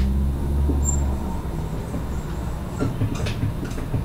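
A steady low rumble, loudest in the first second, with a few short faint scratches of a marker writing on a whiteboard about three seconds in.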